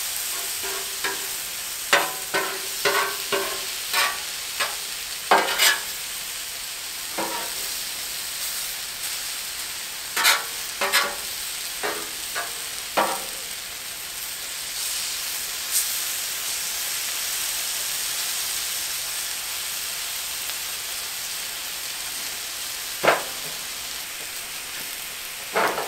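Sliced deer heart sizzling steadily on a hot flat-top griddle. A metal spatula clicks and scrapes against the griddle in quick clusters of sharp taps as the pieces are worked and turned, most in the first several seconds and again about halfway through, with one last tap near the end.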